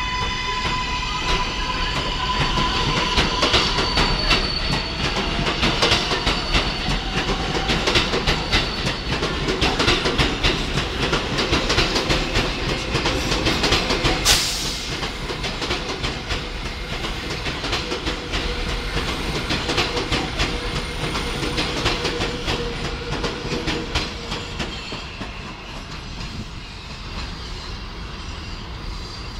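An MTA 7 train of R188 subway cars departing along an elevated steel track and accelerating away. A high steady whine sounds at first, then a rapid clickety-clack of steel wheels over rail joints as the cars pass, with one sharp crack about 14 seconds in. The sound fades as the train moves off.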